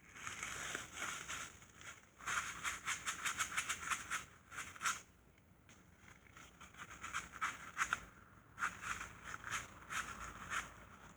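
Two runs of rapid, rhythmic scraping clicks, roughly ten a second, each lasting two to three seconds, from hand work on a transmission case.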